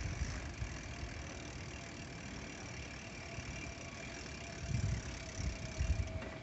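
Steady, fairly quiet hum of road traffic and a car engine from the street beside the path, with a few low rumbles a little before the end.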